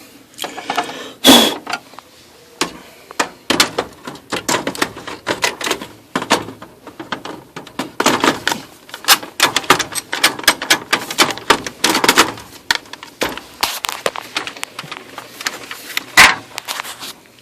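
Oki MB480 laser printer's mechanism clattering with dense, irregular clicks and knocks and two sharp loud knocks, about a second in and near the end. This is the grinding, jamming noise of a faulty new printer.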